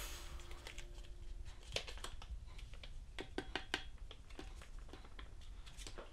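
Foil cat-food pouch crinkling and being squeezed out into a ceramic bowl: a short rustle at the start, then a run of small clicks and taps as the pouch is handled over the bowl.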